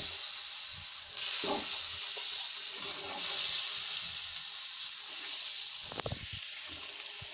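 Milk sizzling and hissing in hot ghee-roasted moong dal paste, the hiss swelling and easing as a ladle stirs it through. A few short scrapes of the ladle against the pan come about six seconds in.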